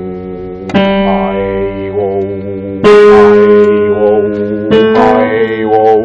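Digital piano chords struck three times, each a step higher than the last and held for about two seconds, with a man's voice singing a held vowel over each: a stepwise vocal warm-up climbing up the range.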